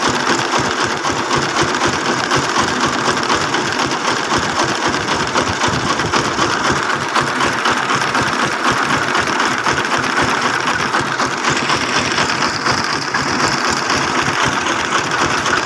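Homemade farm truck's engine running steadily with a fast, even chugging.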